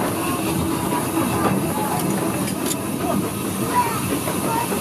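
Steam locomotive No. 2 running along the line, heard from just behind the engine: a steady mechanical din of the engine and its wheels on the rails, with steam hissing.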